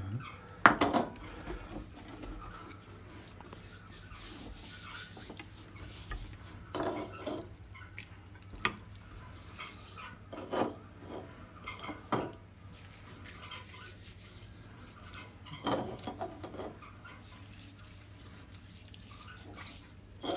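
Hands rubbing an oily spice mixture over the skin of a raw goose in a glass baking dish, with a few scattered knocks and clinks of the glass dish and bowls on the counter.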